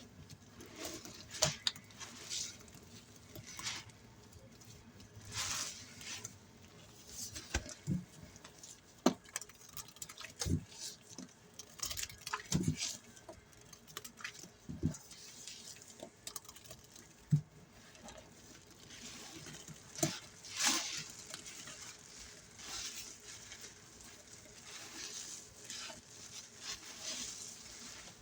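Soapy sponge full of a paste of scouring powder, dish soap and Soft Scrub cleanser being squeezed by hand, giving wet, crackling squeezes at irregular intervals of a second or two.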